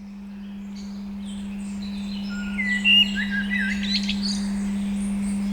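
A steady 200 Hz pure tone fades in, under songbirds chirping. The birds are busiest and loudest about three seconds in.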